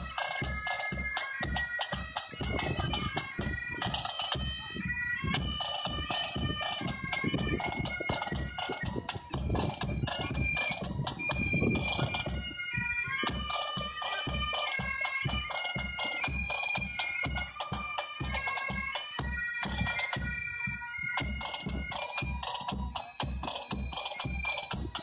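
Pipe band of Great Highland bagpipes playing a tune in unison, with drums keeping a steady beat underneath.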